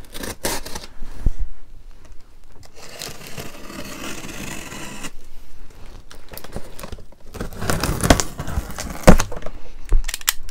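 A box cutter slitting the packing tape on a cardboard box, with a drawn-out scraping cut a few seconds in, and cardboard rustling and knocking as the box is handled; the loudest knocks come near the end.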